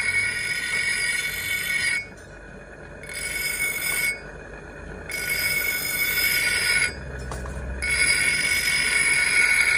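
Bench grinder wheel grinding a steel knife blank cut from an old saw blade: a loud, steady high screech of steel on the abrasive wheel that breaks off three times and resumes.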